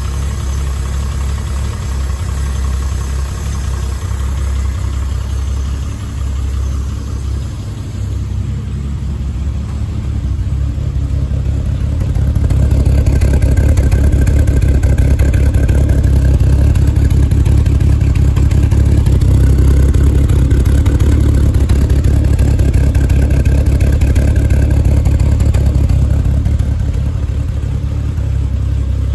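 The 2-litre straight-six of a 1967 Triumph Vitesse Mk1 idling steadily through a stainless steel exhaust. The engine is freshly rebuilt with refurbished carburettors and not yet tuned or balanced. The sound grows louder just before halfway, heard close to the tailpipe, and eases slightly near the end.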